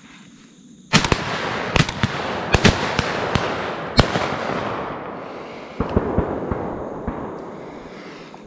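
A rapid string of loud bangs over dense crackling starts suddenly about a second in and is thickest for about four seconds. A few more bangs come near six seconds, then the crackle fades away.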